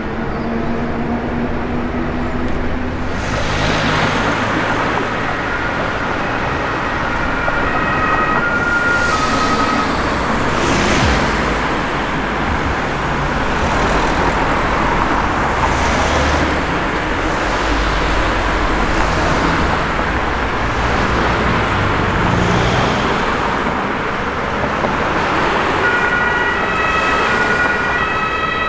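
Ambulance's German two-tone emergency horn (Martinhorn) alternating between its two pitches about every half second. It is heard in stretches over loud engine and road noise from the vehicle moving off.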